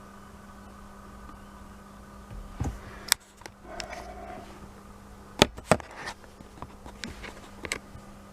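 A steady low electrical hum with a few sharp clicks and taps, the loudest about three seconds in and twice in quick succession about five and a half seconds in.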